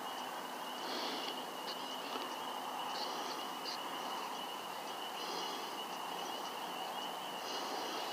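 Outdoor night ambience: a steady hiss with a thin, high steady tone, and a short high call repeating about every two seconds.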